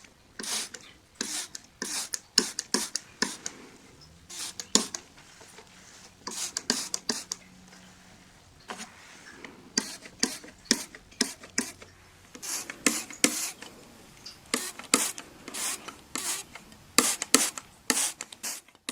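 Window being cleaned with glass cleaner: many short, hissy strokes in an uneven rhythm, often two or three close together.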